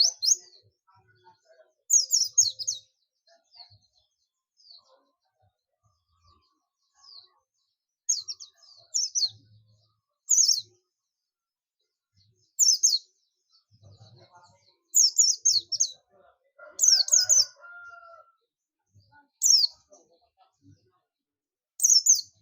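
A white-eye (Zosterops, the form kept as pleci buxtoni) calling in short bursts of fast, high chirping, each lasting about half a second and coming every second or two, with softer single notes between them.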